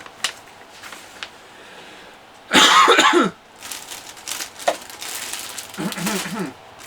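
A person coughs once, loudly, about two and a half seconds in. Small clicks and a stretch of rustling come before and after it.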